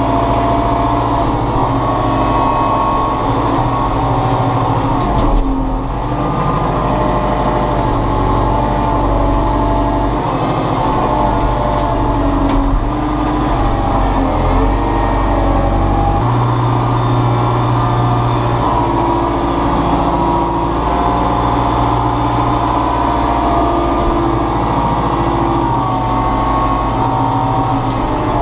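Compact excavator's diesel engine running steadily while the machine works, its tone shifting with load several times as the hydraulics are worked.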